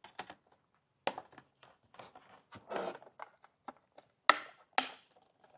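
Small clicks, taps and a brief scrape of hands working on a Mac mini M4's case parts during reassembly, with two louder clicks near the end.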